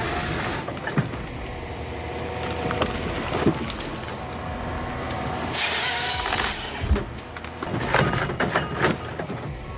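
Forestry harvester running, its engine droning steadily, with a few sharp knocks and a loud hiss lasting about a second midway through.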